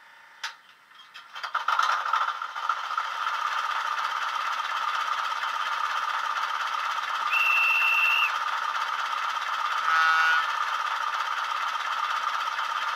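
Diesel shunter engine sound from a DCC sound decoder, played through a model locomotive's small speaker. A click comes first, then the engine starts up about a second and a half in and settles into a steady idle. A single steady high tone lasts about a second midway through, and a short louder burst comes about ten seconds in.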